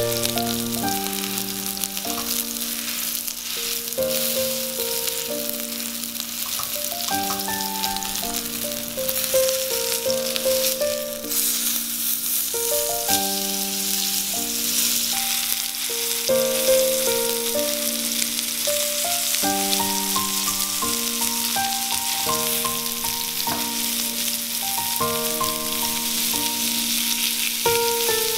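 Top blade (flat iron) steak searing in hot olive oil in a cast-iron skillet, sizzling steadily. Soft background music of slow, held notes plays under the sizzle.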